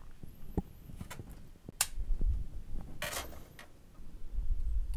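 A few sharp small clicks and taps, a short scraping rustle about three seconds in, and low dull bumps near the end: handling noise at a workbench.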